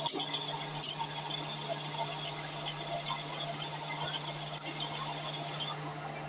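Abrasive cup wheel of a motor-driven grinder resurfacing the face of a spinning semi-truck flywheel: a steady motor hum under a thin high grinding whine, with a couple of light ticks at the start. The whine stops near the end while the hum runs on.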